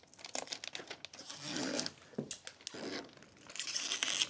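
Tyvek tape being pulled off and its backing peeled and crumpled by hand: crinkly tearing and rustling with small clicks, in two longer stretches, one about a second and a half in and one near the end.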